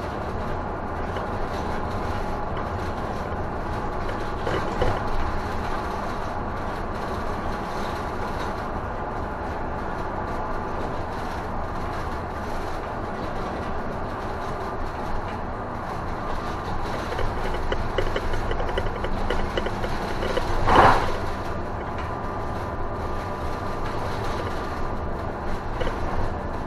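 Interior of an Isuzu city bus under way: steady engine and road noise. A single short, loud knock comes about 21 seconds in, with a smaller one near 5 seconds.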